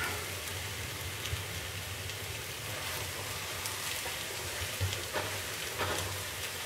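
Crepe frying in butter in a non-stick frying pan: a steady, soft sizzle, with a few light touches of a spatula on the crepe in the second half.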